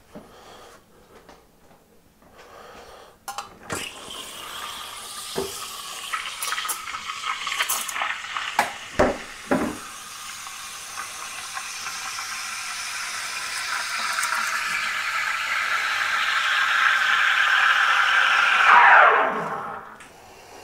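Espresso machine steam wand steaming milk in a jug: a steady hiss that grows louder over about fifteen seconds, then drops in pitch and cuts off shortly before the end. A few knocks come before and during the first part of the steaming.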